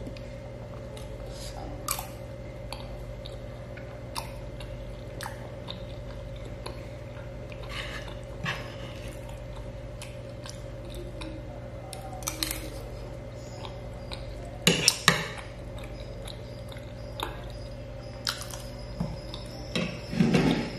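Mukbang eating sounds: chewing of siomay and a metal spoon clicking against a ceramic plate. Scattered small clicks, with a few sharp, louder clinks about fifteen seconds in and again near the end, over a steady background hum.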